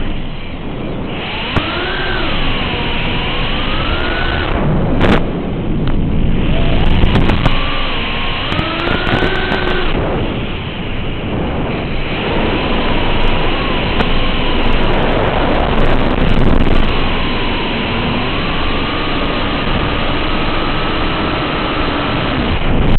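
FPV quadcopter on 5-inch propellers in flight: the brushless motors and props whine over a rushing noise, and the pitch keeps sliding up and down as the throttle changes.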